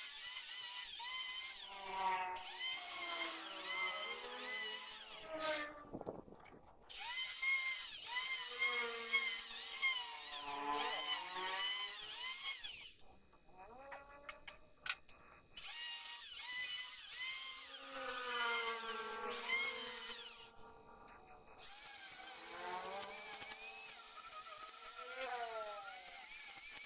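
Electric hand drill running in several bursts of a few seconds each with short pauses, its whine sliding up and down in pitch.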